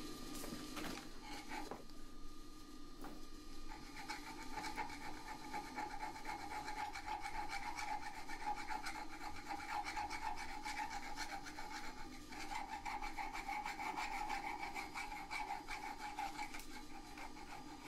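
Small round chainsaw file rasping in quick, repeated strokes over the edges of a steel handle held in a vice, rounding off sharp edges and grinding marks.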